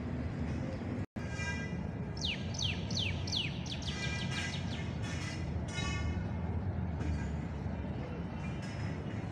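Birds calling: a run of four quick falling whistled notes about two seconds in, then more calls rich in overtones, over a steady low rumble of city traffic. The sound cuts out for an instant about a second in.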